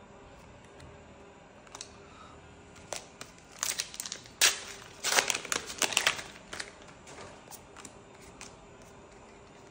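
A trading-card booster-pack wrapper being torn open and crinkled: a dense cluster of sharp crackles about four to six seconds in, with a few lighter clicks of cards being handled before and after.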